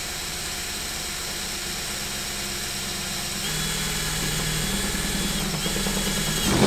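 DeWalt XR cordless drill, set to plain drill mode rather than hammer, running steadily as it bores a hole through the van's steel body panel. About halfway through it gets a little louder and a thin high whine comes in, broken off briefly once.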